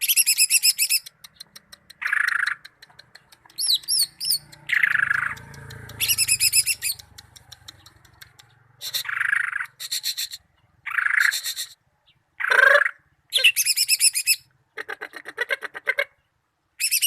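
Cucak ijo (leafbird) singing a varied song: short buzzy notes alternating with rapid, high, ringing trills, and a few quick up-and-down whistles among them, phrase after phrase with short pauses.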